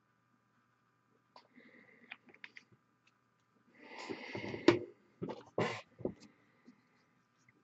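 Small paint dropper bottle being handled: a few light clicks, then a short noisy rasp lasting about a second, ending in a sharp knock, and a few more knocks and taps.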